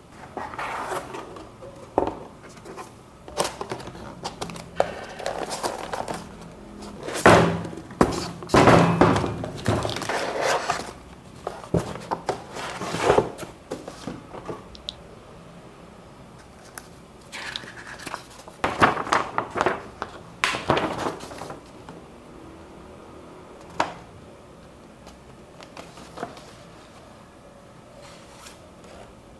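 Keyboard packaging being handled: cardboard box, plastic wrap and paper rustling and crinkling in irregular bursts, with a few soft knocks and clicks. Near the end a large folded paper poster is unfolded with crackling paper.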